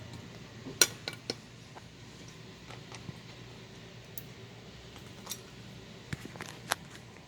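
Small parts and tools being handled: a few sharp clicks and taps, the loudest about a second in and a quick pair near the end, over a steady low hum.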